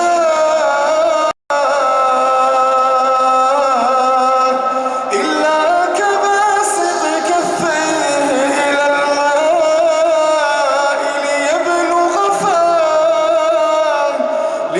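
A man's voice chanting Quran recitation in a slow, melodic style, with long held and ornamented notes. The sound cuts out for a split second about a second and a half in.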